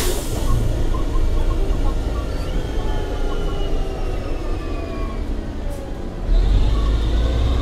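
MCW Metrobus heard from the upper deck. Its drivetrain whines and falls in pitch as the bus slows, after a sharp knock at the very start. About six seconds in, the engine comes back in with a loud deep rumble as the bus pulls away.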